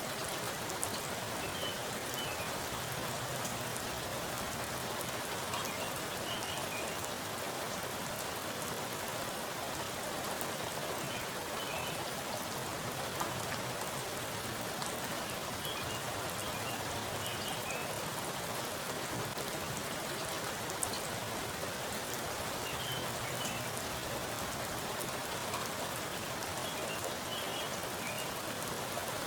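Heavy rain falling onto a pool of still water: a steady, dense patter with scattered sharper drop plinks on the surface.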